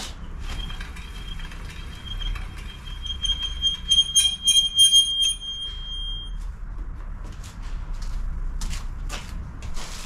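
Mountain-bike disc brake squealing: a high, steady squeal with overtones that starts about half a second in. It swells and pulses from about four to five seconds and dies away around six seconds. This is the noise of the pads rubbing on the rotor.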